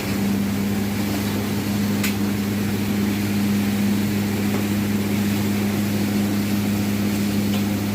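Steady machine hum: a constant low drone over an even hiss, unchanging throughout.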